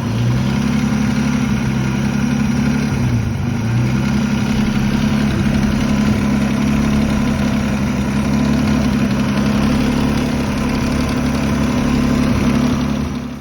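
1986 Nissan 300ZX's 3.0-litre V6 idling steadily, its pitch dipping briefly about three seconds in.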